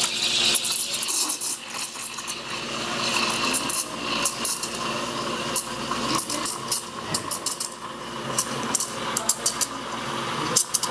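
La Marzocco espresso machine running as shots pull, a steady hum and hiss, with many quick clicks and clinks over it.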